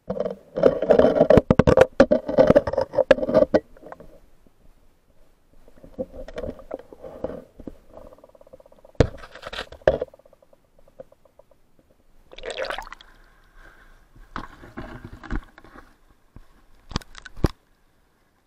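Water sloshing and scraping around a submerged camera, in irregular bursts with sharp knocks, heaviest in the first few seconds.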